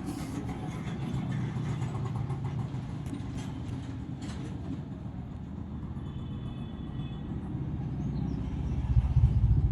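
A continuous low mechanical rumble with an engine-like hum, growing louder near the end.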